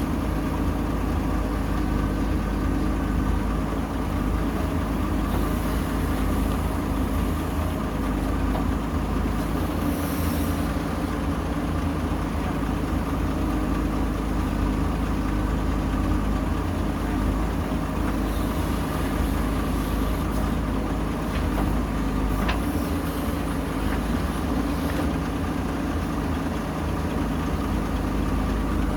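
Diesel engine of a JCB 3DX backhoe loader running steadily under work while digging and loading mud, with a faint knock about two-thirds of the way through.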